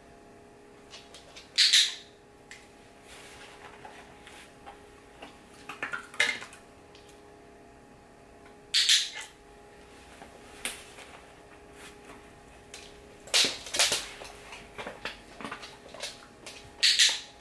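Dog-training clicker clicked about five times at uneven intervals, each click marking the dog's nose touch on the taped target stick, with a faint steady hum underneath.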